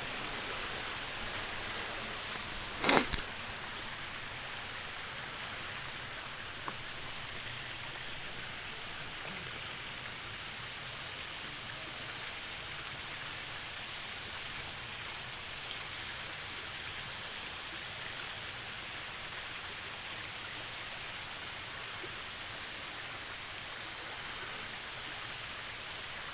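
Steady rush of a river flowing past, with a short knock, the loudest sound, about three seconds in.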